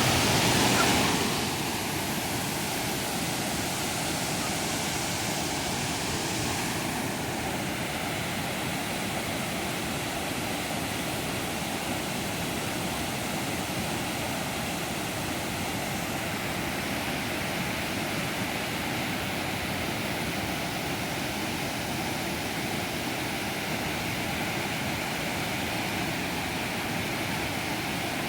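Waterfall rushing steadily, a continuous even roar of falling water, a little louder and brighter for the first second or so.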